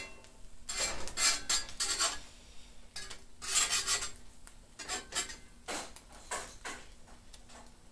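Metal spatula and fork scraping and tapping against a frying pan while an omelette is pushed into shape, in irregular strokes that thin out toward the end.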